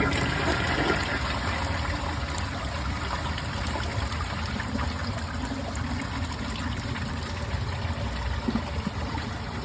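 2018 Mansfield Summit dual-flush toilet flushing with a plastic grocery bag in the bowl: water rushing and running steadily, easing off slightly as it goes.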